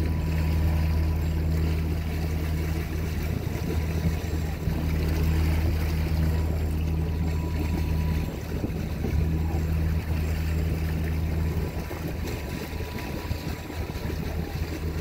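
A boat's engine runs with a steady low drone, along with the rush of water and wind as the vessel moves through the sea.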